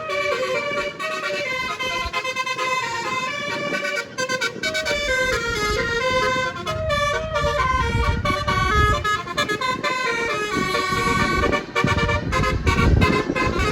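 Nine-note basuri telolet air horn on a tour bus playing a quick multi-note melody, note after note in steps, with engine and road rumble building up underneath from about four seconds in.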